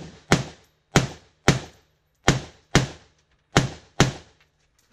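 AR-15 rifle fired rapidly in a practical-shooting stage: seven sharp shots, mostly in pairs about half a second apart, each with a short echo tail.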